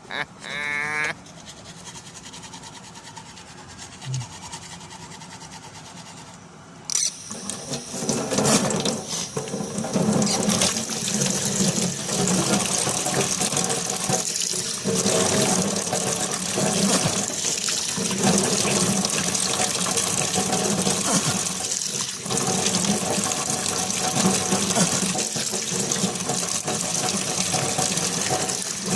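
A steady rushing, splashing noise that starts suddenly about seven seconds in and keeps on, after a few seconds of low background noise.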